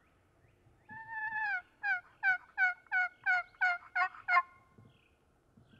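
A hunter's hand-held turkey call yelping: one longer note, then a quick run of about eight short yelps, about three a second, each dropping in pitch. The call is being used to get a gobbler to answer.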